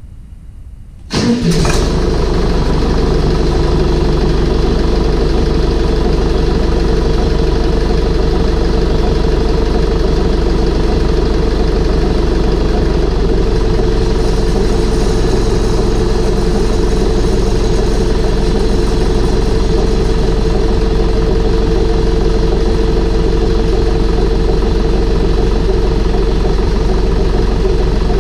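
Deutz diesel engine starting about a second in, catching at once and then running steadily, freshly reassembled with new head gaskets and a new fuel pump.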